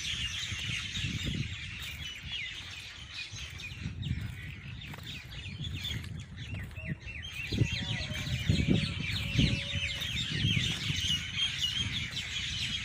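A flock of common mynas chattering together in a tree at dusk, a dense, unbroken stream of overlapping chirps and squawks. Gusts of wind rumble on the microphone underneath.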